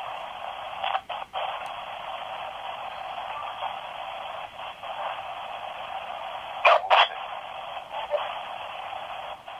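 Spirit box (S Box) sweeping radio stations: a steady hiss of static with brief dropouts about a second in and two short, loud bursts around seven seconds in.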